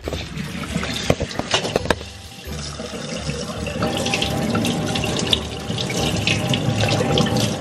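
Water running from a pull-down kitchen faucet and splashing onto a person's head and face held under the stream. A few knocks in the first two seconds, then steady running and splashing from about two and a half seconds in.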